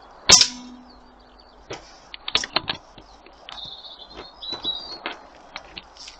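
One sharp air gun shot about a third of a second in, with a brief ringing twang after it, followed by a string of small clicks and knocks. Birds chirp throughout.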